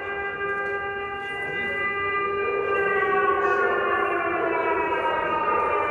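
Civil-defence air-raid siren sounding an air raid warning: a long, loud wailing tone that swells about three seconds in and then slides slowly down in pitch.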